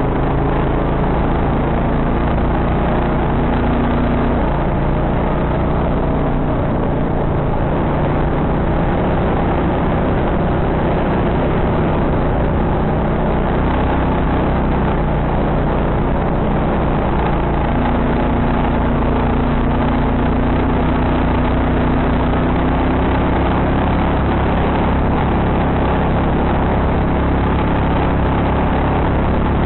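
ATV engine running steadily while under way, its note shifting slightly in pitch a few times as the throttle changes.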